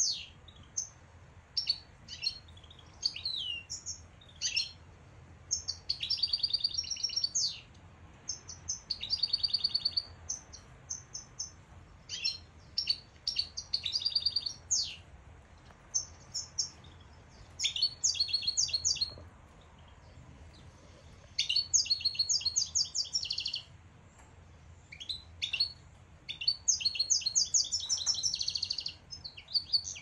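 Caged finches singing: phrases of quick, high chirps and trills, each a second or two long, coming every few seconds.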